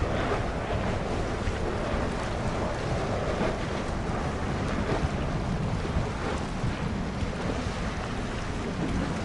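Steady wind rushing and buffeting on the microphone.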